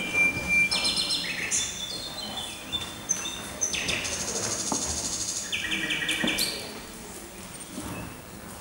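Many bird-like whistles overlapping: high held tones at several different pitches and fast trills, imitating a dawn chorus of birdsong. They thin out and drop in level about six and a half seconds in.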